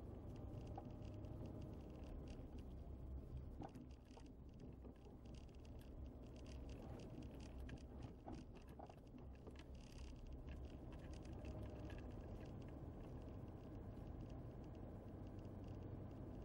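Faint, steady low rumble of a car driving slowly, heard from inside the cabin, with small scattered clicks and rattles.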